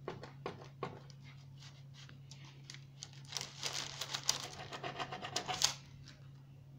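Kitchen knife sawing and scratching through a chocolate-frosted cake. A few light scratchy strokes come first, then a denser stretch of scraping from about three seconds in to near six.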